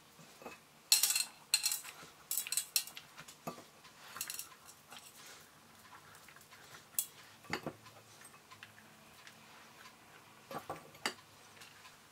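Hands handling food on a metal tray: irregular soft rustles and light clicks as pinches of grated carrot are pressed into hollowed red kamber peppers. About ten short sounds come at uneven intervals, the loudest about a second in.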